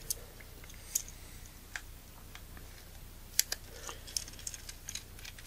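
Scattered small clicks and taps from hands handling a Nikkor 85mm f/2 lens and a metal precision screwdriver on a tabletop. The loudest are two quick clicks about three and a half seconds in, followed by a run of light ticks.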